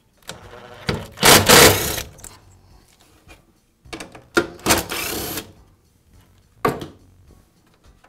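Makita cordless driver running in two short bursts, about a second in and again near the middle, backing out the screws of a cord clamp; a single sharp click follows near the end.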